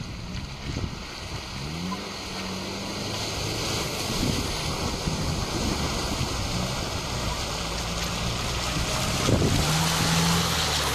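Off-road vehicle's engine revving up and down as it drives through mud and puddles, getting louder as it comes close and passes.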